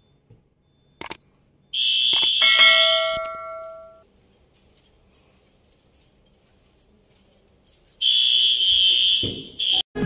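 Fire alarm sounding in two high-pitched bursts of about a second and a half each, one about two seconds in and one near the end. A smoke detector was set off on purpose with a test magnet. A sharp click comes about a second in, and lower ringing tones fade out after the first burst.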